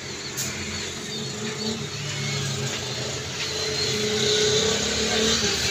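A motor vehicle's engine running steadily, a hum with a few held low tones that grows a little louder in the second half.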